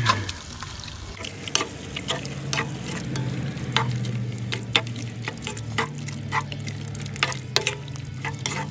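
Wooden spoon stirring beef stew in a pot, scraping and clicking against the pot's sides, while the meat, vegetables and diced tomatoes sizzle over the charcoal fire. A steady low hum runs underneath.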